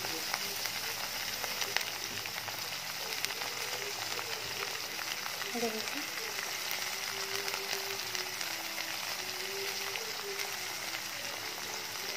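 Shredded cabbage, onion and beans frying in hot oil in a metal kadai: a steady sizzle with light crackles.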